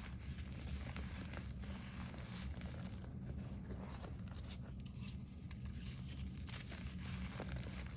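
Hands squeezing and crumbling gym chalk: soft crunches and fine crackles as pressed chalk blocks break apart and loose powder is pressed between the fingers. A steady low hum runs underneath.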